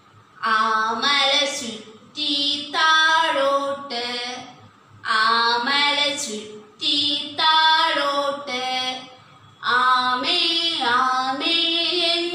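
A woman singing a Malayalam children's action rhyme unaccompanied, in short phrases with brief pauses between the lines.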